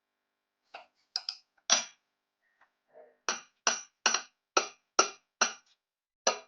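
Sharp taps of a hammer on a workpiece held for machining: a few scattered taps, then a steady run of about eight at roughly two a second.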